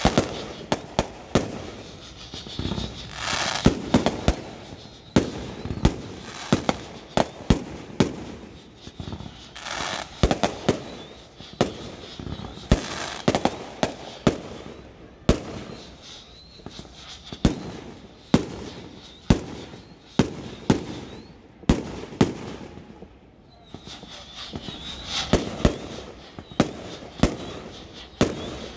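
Firecrackers and fireworks going off in irregular sharp bangs, often two or three a second, with stretches of hissing crackle between.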